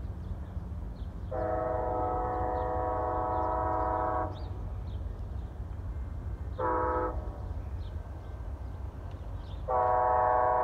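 Amtrak ALC-42 Charger locomotive's multi-tone air horn: a long blast of about three seconds, a short blast, then another long blast starting near the end, over a steady low rumble. The horn is the warning for the crossing ahead.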